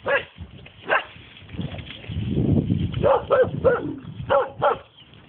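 Norwegian elkhound barking: two sharp barks near the start, then after a pause a quick run of about five, with a low rumble on the microphone in between.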